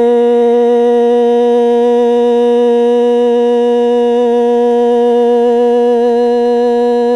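A Hmong kwv txhiaj singer holding one long, steady sung note, with a slight waver near the end.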